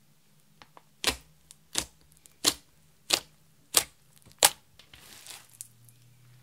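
Fingertips poking down into a slab of thick pink glitter slime: six sharp pops, about one every two-thirds of a second, followed by a softer crackle.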